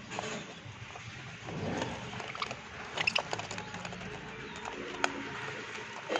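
Pet lovebirds at their food: a few short high chirps about three seconds in, among scattered sharp clicks and taps and a low rustling.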